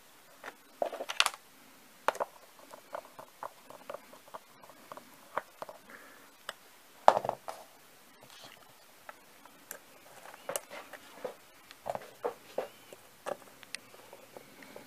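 Hand screwdriver driving small screws to fix a circuit board to a block of wood, with irregular clicks, knocks and scrapes of the board and tools being handled on a table; the loudest knocks come a little after a second in and about seven seconds in.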